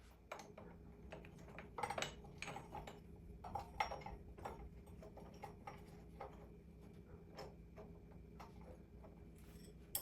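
Faint, irregular light metallic clicks and clinks of hand tools and parts being handled while a dirt bike's rear wheel and axle are refitted, over a low steady hum.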